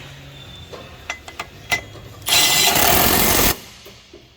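Power wrench running a bolt down in one burst of a little over a second, after a few light clicks of tools on metal.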